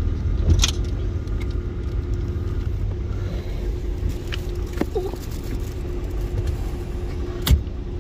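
Steady low rumble with a faint hum, over which come a few sharp plastic clicks, the loudest near the end, as fuses are handled in the car's fuse box.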